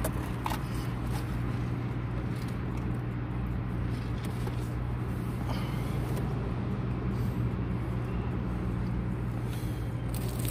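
Steady low hum of a car's engine idling, heard from inside the cabin, with a few faint light clicks over it.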